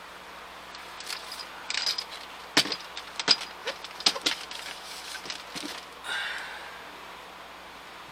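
A run of sharp clicks and knocks with a light jingle, like keys and hardware being handled inside the truck cab, loudest about two and a half and three and a quarter seconds in. A short scrape or rustle comes near the start and again about six seconds in.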